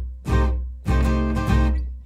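Background music: strummed guitar chords over a strong bass, with a steady beat of about three strums in two seconds.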